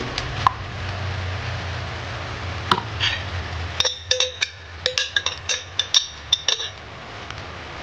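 Metal spoon clinking and scraping against the inside of a glass jar while scooping out red kaong: a few single clicks, then a quick run of sharp, ringing taps from about four seconds in that stops near the end.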